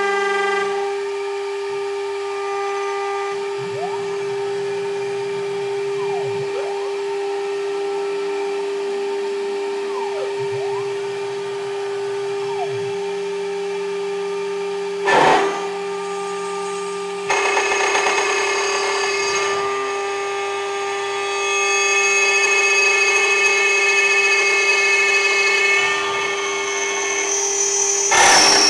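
Two-head CNC lock-hole router for aluminium door profiles running, its air-cooled 24,000 rpm spindle giving a steady high tone while the axis motors whine up and down as the head moves. About halfway there is a sharp knock, and after it a louder, rougher cutting noise as the spindle mills into the aluminium.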